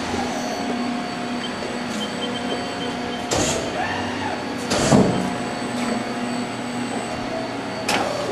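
Machine-shop machinery running, with a steady hum and several constant whining tones from the CNC lathe cutting a part from bar stock. Three sharp loud knocks cut through it, about three and a half, five and eight seconds in.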